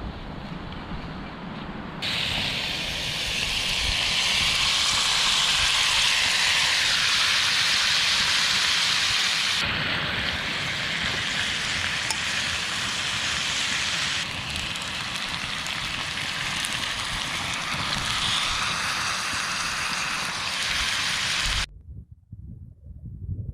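Steak and vegetables frying and sizzling in a pan on a gas camping stove, a steady hiss that shifts abruptly several times between short clips and cuts off near the end.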